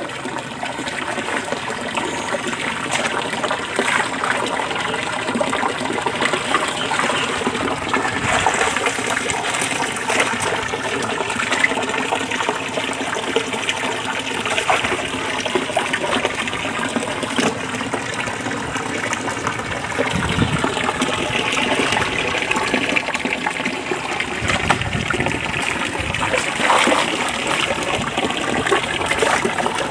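Steady rush of running water in a shallow, mostly drained concrete fish pond, with scattered splashes as a hand net is swept through the water.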